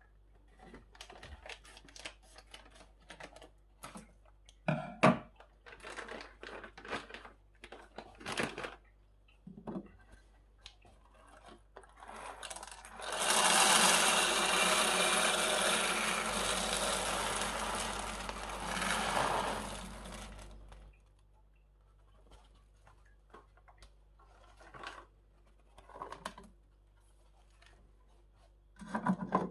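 Siemens EQ.300 fully automatic coffee machine running loudly and steadily for about eight seconds, starting about twelve seconds in and stopping around twenty-one seconds. Scattered clicks and rattles come before and after.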